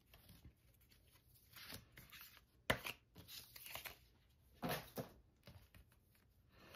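Faint rustling and sliding of paper photocards and card-stock album packaging being handled and laid on a wooden table, with a sharp tap about two and a half seconds in and a louder rustle near five seconds.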